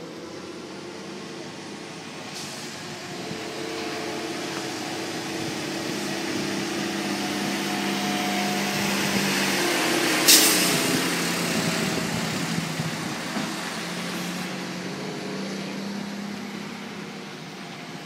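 Mack concrete mixer truck's diesel engine running as the truck drives by, growing louder to a peak about halfway through and then fading as it pulls away. A brief sharp hiss of air comes as it passes.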